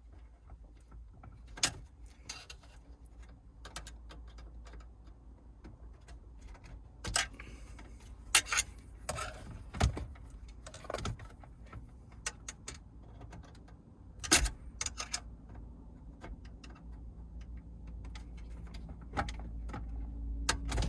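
Scattered plastic clicks and knocks as the wiring connector clips are pressed and pulled from the back of a Mercedes W203 C-Class radio head unit and the unit is handled out of the dash.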